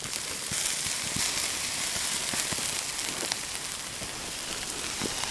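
Burnt BMW plastic motorcycle side case smouldering: a steady hiss with scattered small crackles and pops.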